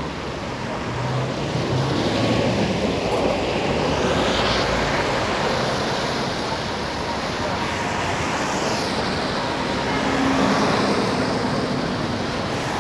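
Traffic on a rain-wet street: cars passing close by with a continuous hiss of tyres on the wet road, swelling as vehicles go by a couple of seconds in and again near the end.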